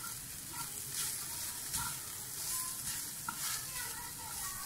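Minced chicken sizzling in a frying pan as a silicone spatula stirs and scrapes through it in repeated strokes.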